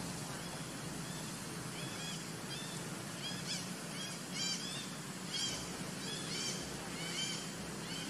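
Short, high, rising-and-falling animal calls repeated over and over, sparse at first and coming one to two a second from about three seconds in, over a steady low hum.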